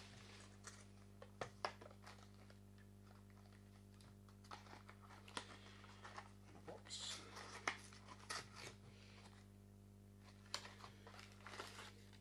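Faint handling of a cardboard box and plastic packaging: scattered light clicks and taps with a few short rustles, mostly about seven seconds in and near the end. Underneath runs a steady low electrical hum from the camera's mains power supply.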